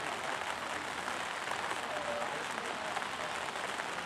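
Steady hiss of outdoor background noise on the microphone, with a faint distant voice about two seconds in.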